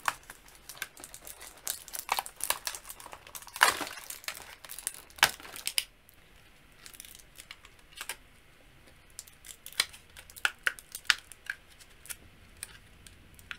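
Plastic packaging crinkling and crackling while a doll and its small accessories are handled and unwrapped, with many sharp plastic clicks. The crackling is busy for about the first six seconds, then thins out to scattered clicks.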